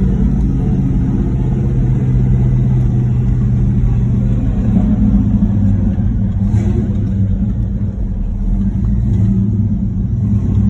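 1968 Pontiac GTO's 400 cubic-inch V8 engine running steadily while cruising, a continuous low rumble with a brief dip about eight seconds in.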